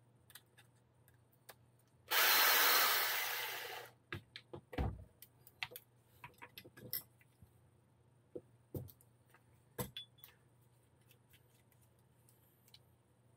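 About two seconds in, a spray can hisses in one burst of a little under two seconds, fading at the end: brake cleaner sprayed onto the RC car parts. After it, scattered light clicks and a few dull knocks of small plastic and metal parts being handled on the bench.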